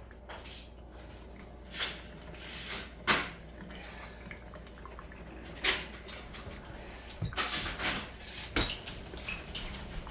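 Hard objects knocking and clattering in a series of separate sharp knocks, the loudest about three seconds in, then a quicker run of clatters near the end, over a steady low hum.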